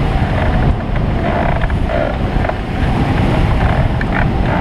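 Loud rush of airflow buffeting the microphone on a Bautek Skycruiser microlight trike gliding with its engine shut off and propeller stopped, so no engine is heard. Irregular creaks and rattles from the trike's airframe come and go over the wind.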